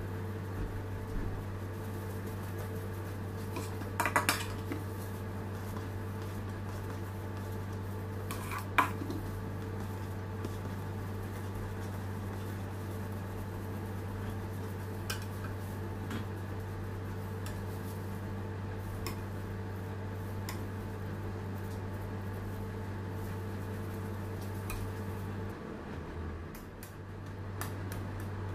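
Scattered light clinks and taps of a metal palette knife against a metal cake turntable while cream is spread, the loudest a quick cluster of clinks about four seconds in and a single sharp clink near nine seconds. A steady low hum runs underneath.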